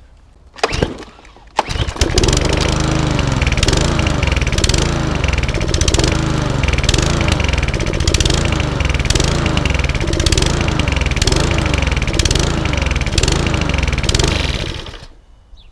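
Petrol lawnmower's SV150-class four-stroke engine, pull-started, catching after a second tug about two seconds in. It runs hunting, the revs rising and falling about once a second, which points to a carburettor problem. It is shut off near the end.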